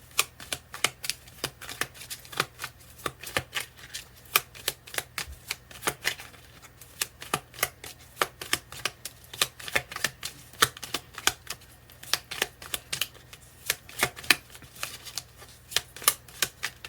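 A deck of oracle cards being shuffled by hand: a quick, irregular run of card slaps and flicks, several a second.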